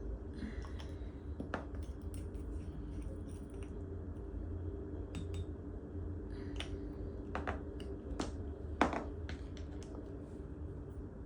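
Scattered small clicks and taps of nail-polish bottles and nail-art tools being handled, irregular and spread out, with the sharpest click near the end, over a steady low hum.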